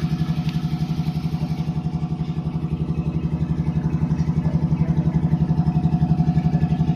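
Air compressor running steadily, a low motor hum that pulses fast and evenly.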